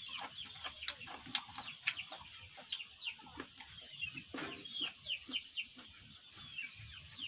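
Chickens in the background making many short, high, falling peeps and clucks all through, fairly faint, with scattered light clicks.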